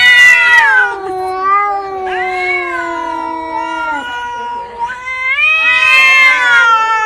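Domestic cat yowling at another cat in long, drawn-out cries whose pitch slides up and down. It is loudest at the start and again about five to six seconds in.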